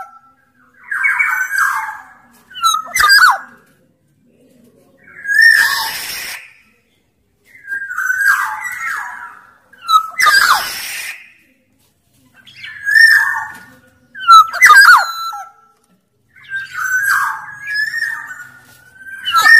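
Black-naped oriole (Sumbawa kepodang) calling over and over, one short fluty whistled phrase about every two seconds. Twice, about six and ten seconds in, it gives a harsher, rasping call instead.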